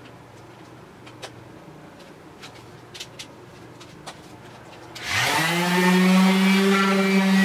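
A few faint clicks, then about five seconds in a HiKOKI random orbital sander starts with a quick rising whine. It settles into a steady, loud run as its pad sands the stained wooden tabletop.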